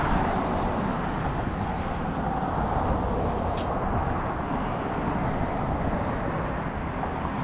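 Steady rumbling noise of road traffic on the neighbouring highway bridge, even throughout, with one faint click about three and a half seconds in.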